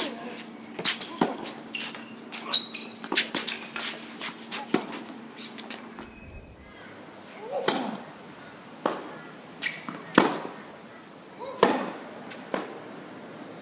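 Tennis balls struck by rackets and bouncing on a hard court in a rally, sharp hits about once a second. After a brief break about six seconds in, a few louder single racket strikes follow, spaced a second or more apart.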